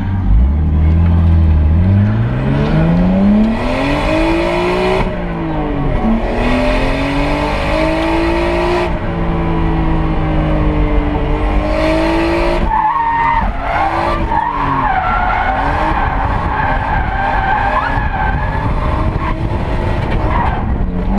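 Nissan Skyline R32 GTS-4 drift car heard from inside the cabin, its engine revving up and falling back repeatedly with sharp drops between pulls. Tyres squeal through a long slide in the second half.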